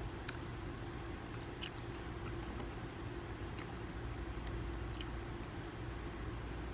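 Light clinks of utensils on plates, a few scattered sharp ticks, over a steady low hum.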